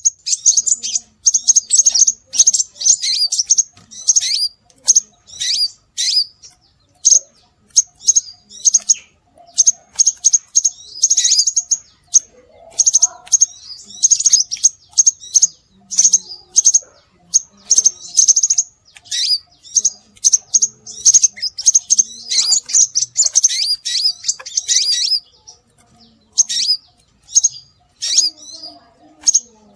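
Scarlet minivet (sepah raja) calls: rapid, high-pitched chirps, many of them sliding downward, mixed with short buzzy trills and repeated almost without pause.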